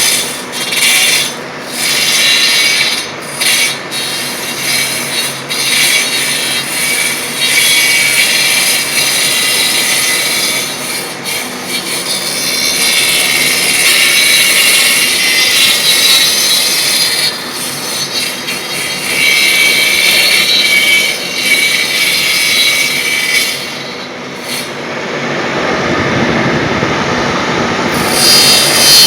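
Wood copy lathe turning a baluster: the cutter shaving the spinning wooden blank in a steady, loud hiss with brief dips. For a few seconds near the end the high hiss drops away, leaving a lower rumble, then comes back.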